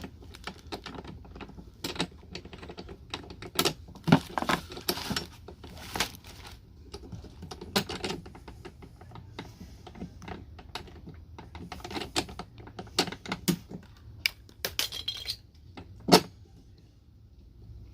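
Irregular clicks, knocks and light rattles of plastic and metal parts being handled while a battery push mower's handle is assembled, with a sharper knock about 16 seconds in.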